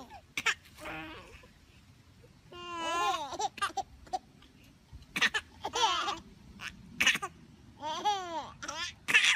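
Two babies laughing and babbling at each other in short, high-pitched laughs, with quiet gaps between them.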